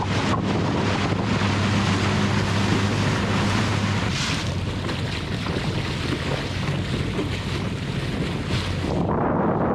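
Wind buffeting the microphone and water rushing past a moving boat, under a steady low motor hum that is strongest for the first four seconds and fainter after.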